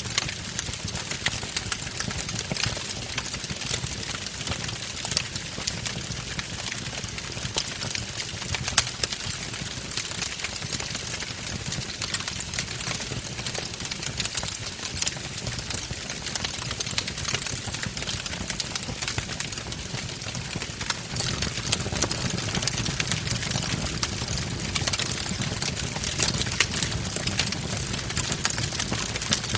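Wood fire burning in a fireplace: dense crackling over a low steady rumble of the flames, with one sharper pop about nine seconds in.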